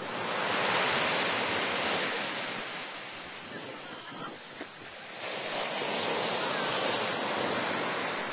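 Ocean surf breaking and washing up the beach: a steady rushing noise that swells twice, once near the start and again about five seconds in, easing in between.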